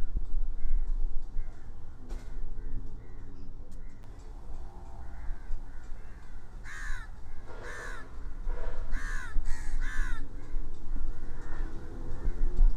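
Harsh, cawing animal calls: faint ones at first, then four loud, downward-arching calls in quick succession in the second half, over a steady low rumble.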